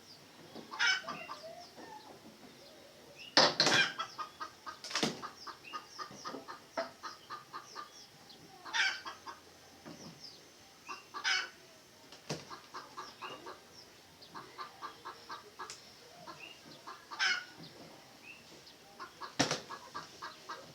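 Red junglefowl clucking in quick runs of short notes, with single calls in between. Several sharp knocks cut in, the loudest about three and a half seconds in.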